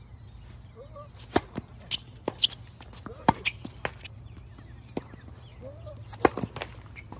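Tennis ball bouncing on a hard court and being struck with rackets: a string of sharp separate pops and thuds. A serve is struck near the end.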